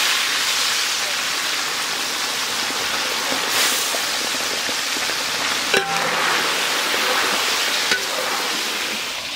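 Turmeric-coated fish pieces frying in hot oil in a kadai: a steady, even sizzle, with a single light knock a little past halfway.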